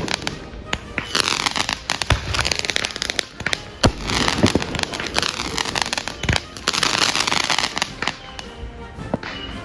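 Consumer fireworks going off in quick succession: many sharp bangs over a dense crackle.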